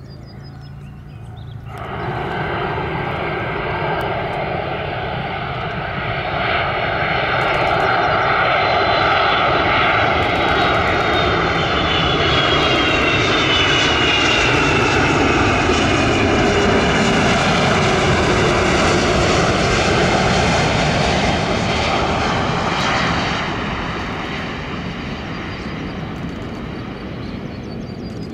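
Twin-engine Airbus A330 jet airliner passing low overhead on final approach: the engine noise swells, and a high engine whine drops in pitch as it goes by, then fades away.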